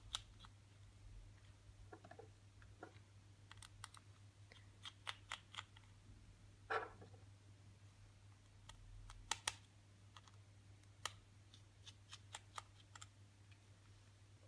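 Faint, scattered clicks and ticks of a small screwdriver turning out the tiny screws of an iPhone 6S home-button cover plate, over a low steady hum; the clearest clicks come about seven and nine and a half seconds in.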